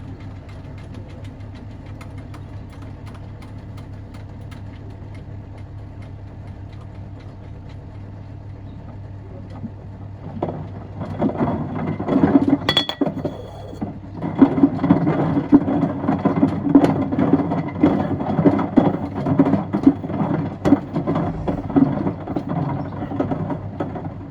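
Miele washing machine running with wood and stones in its drum: a steady motor hum, then from about ten seconds in loud, irregular knocking and rattling as the stones and wood tumble against the drum. A brief high tone sounds about halfway through.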